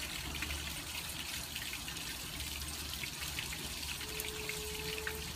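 Rainwater trickling and dripping down a copper cup rain chain, splashing from cup to cup, with steady rain falling around it: a continuous patter of small drips.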